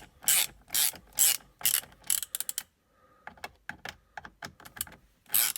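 Ratchet tool clicking in short bursts, about two a second, as the screws holding the steering wheel's airbag bracket are loosened. The clicking pauses for a couple of seconds with only faint ticks, then one more burst comes near the end.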